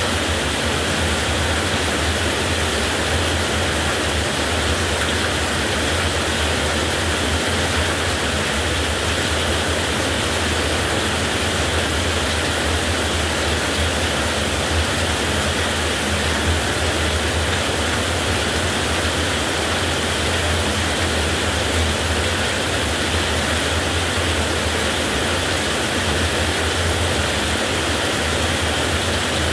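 Heavy rain pouring steadily: an even hiss with a steady low rumble beneath it.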